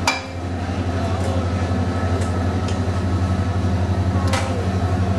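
Steady low hum of commercial kitchen equipment at a gas range, with a sharp metal clink right at the start and another about four seconds in.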